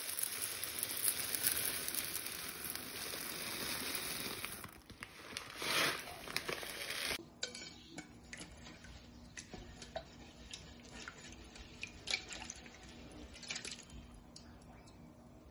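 Dry red lentils poured from a bag into a rice cooker's metal inner pot, a steady rattling hiss with a brief pause. About seven seconds in it gives way to quieter light splashes and clicks as the lentils are rubbed and swished by hand in water in the pot.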